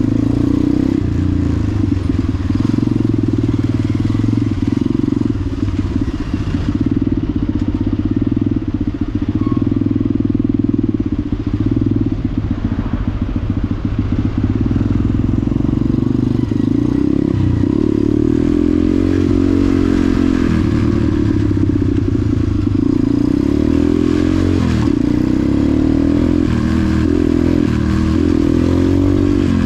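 KTM supermoto motorcycle engine running close up under the rider, pulling along slowly through traffic. Past the middle its pitch rises and falls again and again as the throttle is opened and closed.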